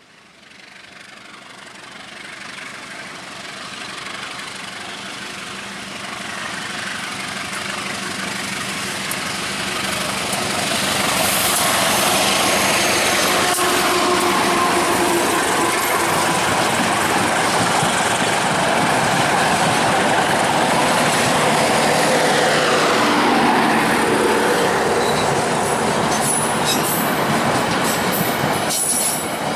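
Diesel-electric locomotive hauling a passenger train, growing steadily louder as it comes closer over the first ten seconds or so. Its engine passes with a falling pitch, then the coaches roll by with wheel clatter and clicks over the rail joints.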